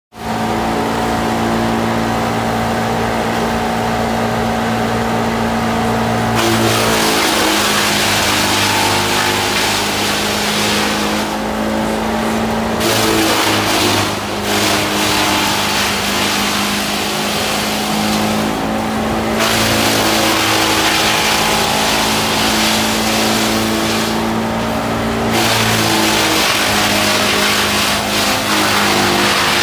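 Four-cylinder diesel engine of a mobile wood chipper running steadily. From about six seconds in a loud rushing noise of wood being chipped joins it, easing off briefly three times between loads.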